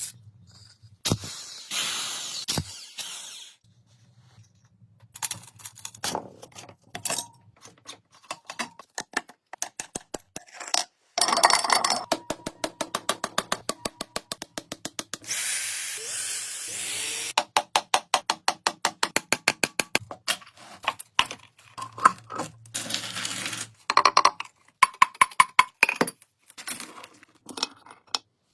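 Hand tools at work on metal parts: runs of rapid, evenly spaced clicks and several bursts of scraping or brushing noise lasting a second or two each.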